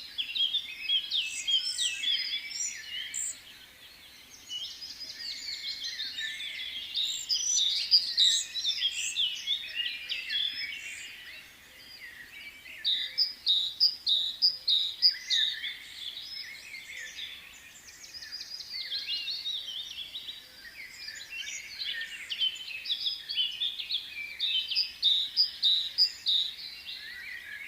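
Many small birds chirping and calling at once, a dense chorus of short high chirps that thins briefly a few times.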